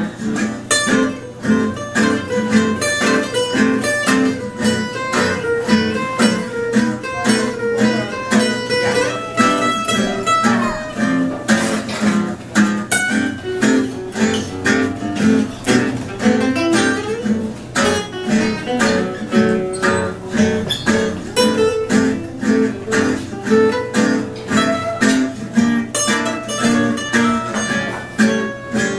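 Two acoustic gypsy-jazz guitars, one an oval-soundhole Selmer-style guitar, playing a duo: a picked single-note melody over steady strummed rhythm chords.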